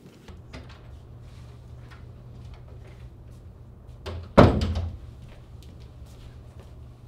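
Wooden classroom door shutting: a short knock about four seconds in, then a loud slam that rings briefly. A steady low hum runs underneath.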